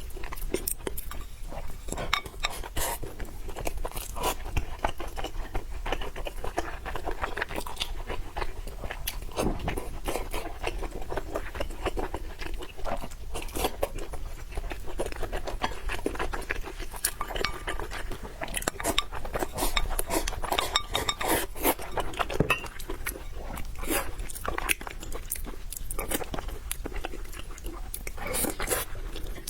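A person eating close to the microphone: continuous chewing and crunching of food, with many small wet clicks and bites.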